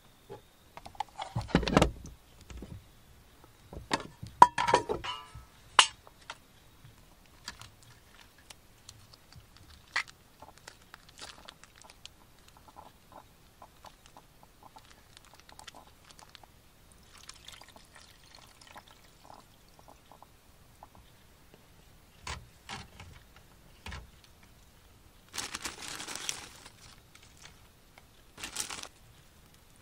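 Close-up food-prep handling sounds: a liquid soup base poured from a foil pouch into an aluminium tray, with scattered knocks and clicks. Bursts of plastic-bag rustling come near the end.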